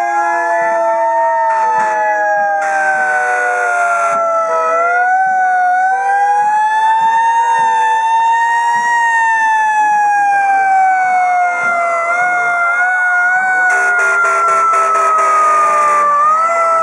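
Fire truck sirens wailing, several overlapping with slow rising-and-falling tones at different pitches. Twice a harsher noisy blast cuts in over them, about three seconds in and again near the end.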